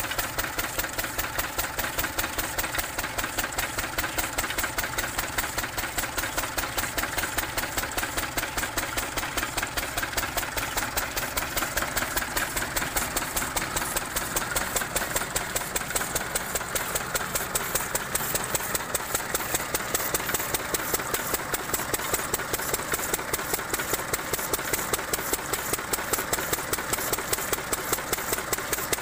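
Single-cylinder stationary diesel engine running steadily with an even, rapid beat of its firing strokes, belt-driving a borewell irrigation water pump.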